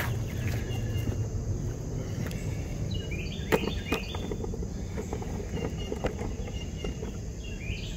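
A few sharp metal clinks, the loudest about three and a half seconds in, as the axle hub is handled on the hydraulic press. Under them runs a steady low background rumble, with short bird chirps.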